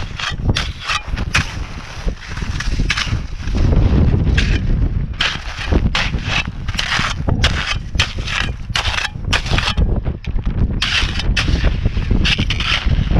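Small hand shovel chopping and scraping into super hard-packed snow: a quick, irregular run of sharp crunching strikes, several a second. A low wind rumble on the microphone runs underneath.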